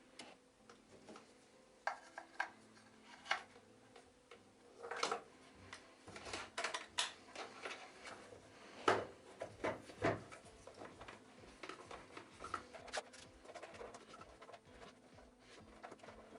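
Hard plastic parts of a Samsung SC4034 vacuum cleaner being handled and fitted together during reassembly: irregular clicks, knocks and scrapes, the loudest a pair of sharp knocks about nine and ten seconds in.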